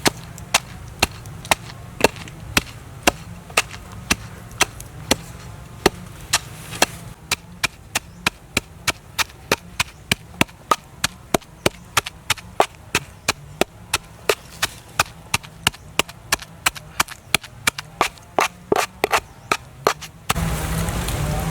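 A knife chopping on a wooden cutting board: a long run of sharp, even chops, about two a second at first and about three a second later. Near the end the chopping stops and a steady hiss takes over.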